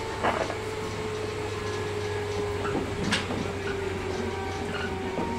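Inside a JR 115 series electric train at a station stop: a steady low hum with a faint steady whine, and a few scattered knocks and clunks.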